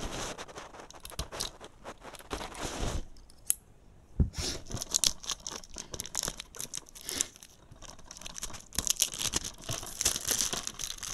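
Clear cellophane shrink-wrap being torn and peeled off a DVD case, crinkling in three spells with short pauses between them. A single sharp click comes about four seconds in.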